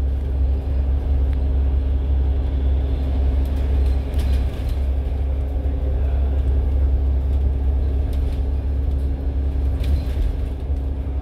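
Steady low rumble of engine and tyres heard from inside a bus cruising at speed on an expressway, with a steady hum under it.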